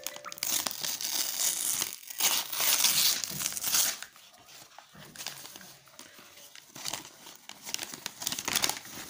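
Brown paper mailer envelope being torn open and crumpled by hand: loud tearing and crinkling for the first four seconds, then softer rustling of the paper.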